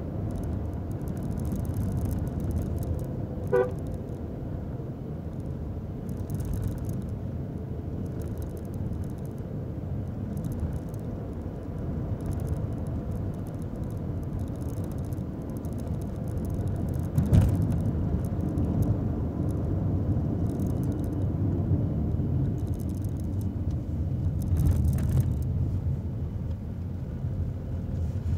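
Steady low engine and road rumble inside the cabin of a moving Nissan Magnite turbo CVT, whose 1.0-litre three-cylinder turbo petrol engine runs under it. A short car-horn toot comes about three and a half seconds in, and a single sharp thump about seventeen seconds in.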